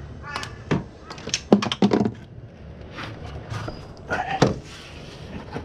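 Scattered knocks and clunks of parts and tools being handled in a car's engine bay. The sharpest come in a quick cluster around the middle and once more near the end.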